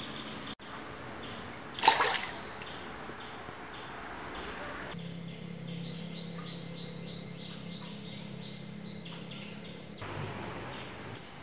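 Water running steadily into a concrete fish tank, with a short louder rush of noise about two seconds in. In the middle stretch a low steady hum and birds chirping join it.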